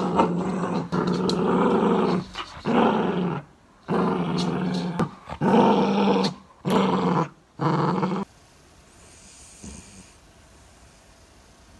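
Cavalier King Charles Spaniel growling in a run of about six long, drawn-out growls with short breaks between them, stopping about eight seconds in.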